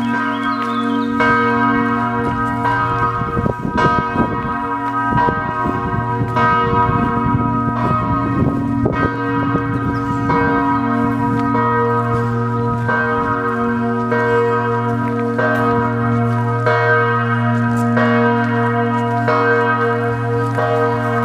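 Several church bells pealing together, a new stroke about every second over a long ringing hum.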